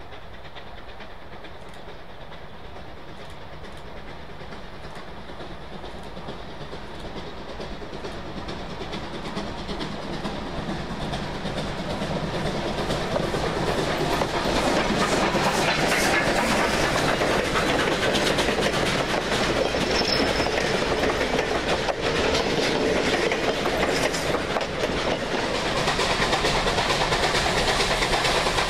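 Train approaching on the rails, its wheels clattering over the track and growing steadily louder for about the first half, then staying loud and close.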